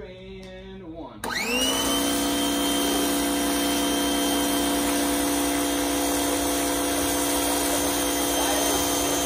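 Active VE52 electric pressure washer kicking on about a second in as the trigger is pulled. Its motor and piston pump spin up quickly to a steady whine, with the hiss of the foam cannon spraying.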